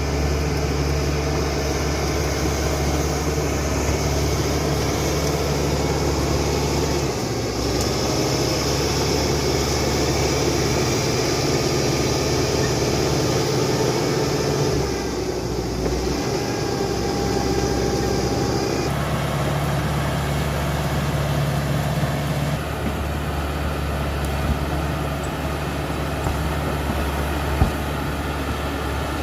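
Caterpillar D5K XL bulldozer's diesel engine running steadily at work, its drone changing abruptly a few times. A sharp click near the end.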